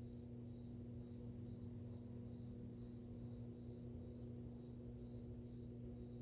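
Aquarium pump motor running with a steady low electric hum, with a faint high ticking chirp repeating about twice a second.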